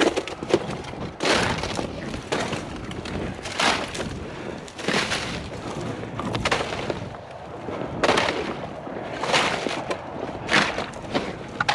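A hunter's steps through marsh: a short swish with each stride, about one every second or so, at an uneven pace.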